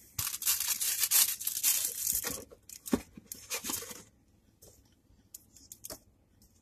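Packaging being torn open and crinkled by hand for about four seconds, followed by a few lighter rustles and ticks.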